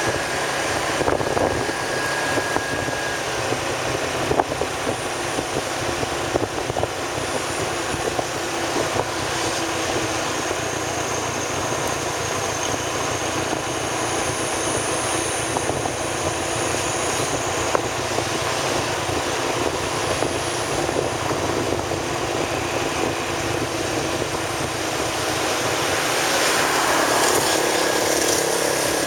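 Steady running noise of a moving vehicle: engine and road noise, with a few small ticks, growing a little louder near the end.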